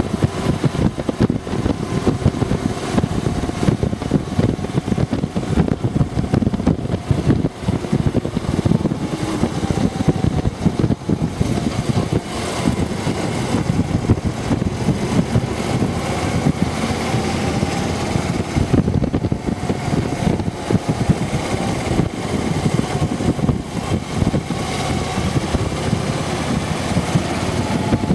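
Harley-Davidson FLHTC Electra Glide Classic's V-twin engine running while the bike is ridden, heard from on board, with rushing wind and road noise; its pitch rises and falls gently with road speed.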